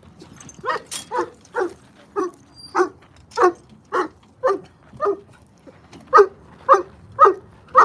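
A dog barking over and over in a steady rhythm, about two barks a second, a little louder near the end.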